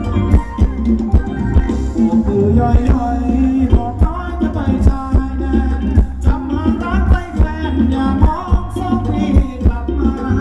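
Live band playing Thai folk dance music: a steady drum beat under a sung melody.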